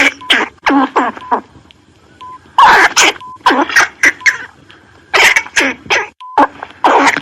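A squirrel calling: short, harsh calls in quick groups of two to four, each group a second or so apart.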